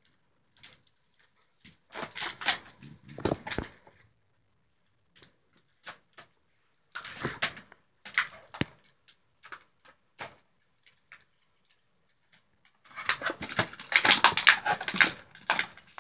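Clear plastic toy packaging crinkling and crackling as hands work to open it, in three bursts: about two seconds in, about seven seconds in, and a longer, louder one near the end.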